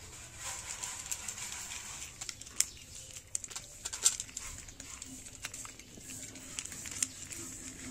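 Cats eating dry kibble from plates: irregular sharp crunches and clicks of chewing and of food against the plates.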